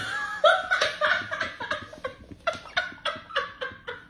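A person laughing in a long run of short bursts, about four a second, loudest at the start and trailing off.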